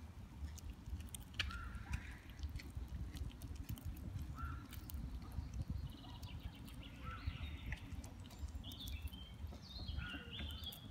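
Red squirrel gnawing and crunching a walnut held in its paws: quick, irregular sharp clicks. Birds chirp in the background, more often near the end, over a steady low rumble.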